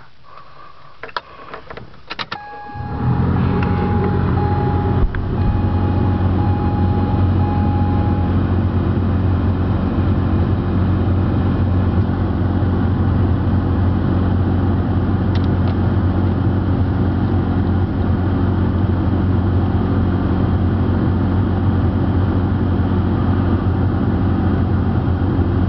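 Car engine starting about three seconds in after a few clicks of the key, then idling steadily. A dashboard warning chime beeps at an even pace for about five seconds after the engine catches.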